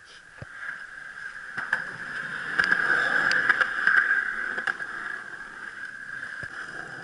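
Skateboard wheels rolling over concrete, a steady rumble that swells to its loudest midway and then eases, with a few sharp clacks as the wheels cross pavement joints.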